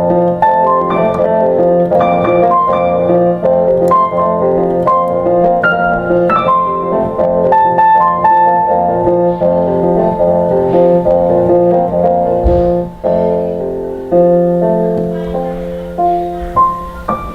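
Background piano music: a melody of struck notes over a held low note. It breaks off briefly about thirteen seconds in, then resumes and slowly dies away near the end.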